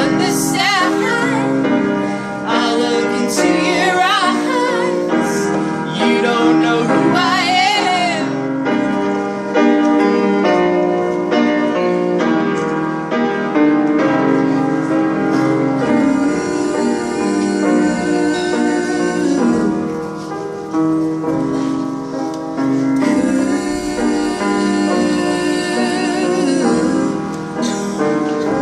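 A live band performing a song, with voices singing wavering, wordless lines over the music for about the first eight seconds. After that the instruments carry on with steadier held chords.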